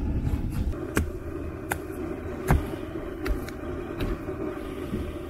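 Propane camp stove burner running with a steady low roar under a moka pot, with several sharp metallic clicks over it.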